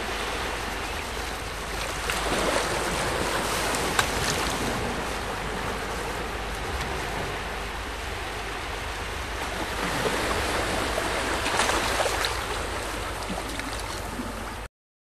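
Sea surf: a steady rush of waves washing in, swelling a couple of seconds in and again about ten seconds in, then cutting off suddenly near the end.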